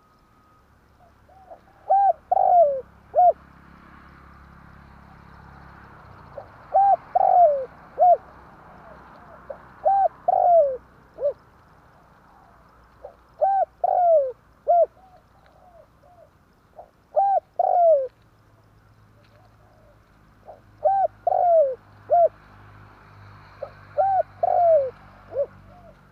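Spotted dove cooing: about seven phrases of three to five short, falling coos, one every three to four seconds, used as a lure call for trapping doves.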